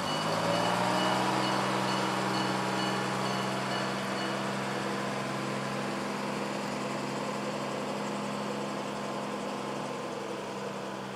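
Heavy engine rising in pitch over the first second as it picks up, then running steadily and fading slightly.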